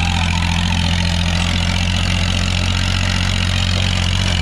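1997 Veer Pratap tractor's diesel engine running steadily under load while pulling an 8x8 disc harrow through dry soil.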